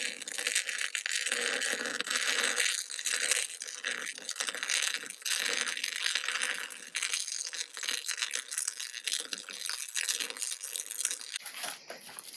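Miller-Matic 252 MIG welder arc crackling steadily as a heavy bead is laid on steel, stopping shortly before the end.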